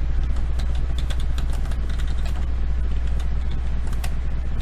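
Irregular clicking of a computer keyboard and mouse, several clicks a second, over a steady low electrical hum.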